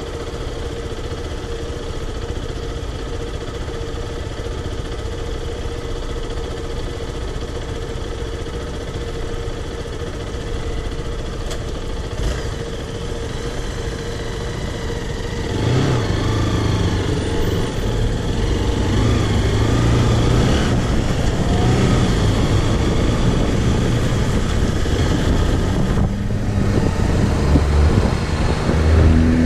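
Zontes X1 350's liquid-cooled single-cylinder engine running under way, steady at first, then louder from about halfway as the bike accelerates, its pitch shifting up and down.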